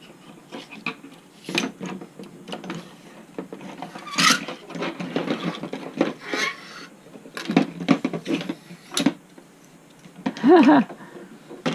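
Irregular clicks, taps and scrapes of small parts being handled while working a rubber bushing out of an RC helicopter's tail torque tube. A brief vocal sound comes near the end.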